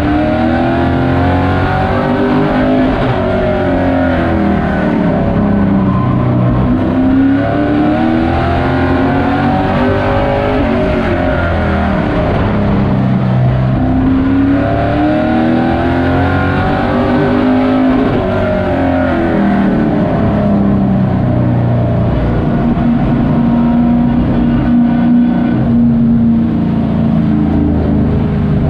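Racing pickup truck's engine heard from inside the cockpit at race speed, its pitch repeatedly climbing as it accelerates and dropping off as it lifts, a cycle every few seconds. The pitch holds steadier for the last several seconds.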